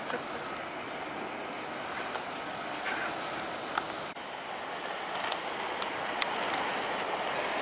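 Red road flare burning on asphalt, a steady fizzing hiss, which breaks off about four seconds in. Steadier outdoor street noise with a few small clicks follows.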